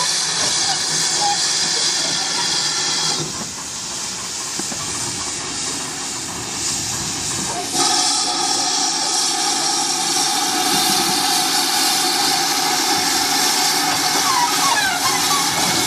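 GWR 5700 class pannier tank locomotive No. 3738 hissing steam with a loud, steady hiss. The hiss eases about three seconds in and comes back stronger about eight seconds in.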